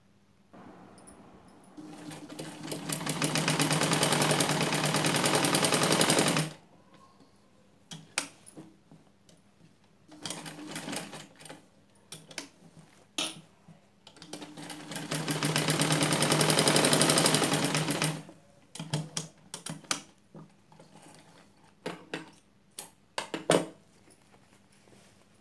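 Sewing machine stitching in two fast runs of several seconds each. The first starts about half a second in, builds up speed and stops sharply; the second runs through the middle. Short clicks and rustles come in between and near the end.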